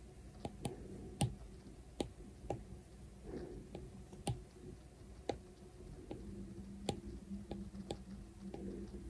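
Apple Pencil's plastic tip tapping and dabbing on an iPad's glass screen during painting strokes: sharp, separate clicks at an irregular pace, sometimes two or three in quick succession.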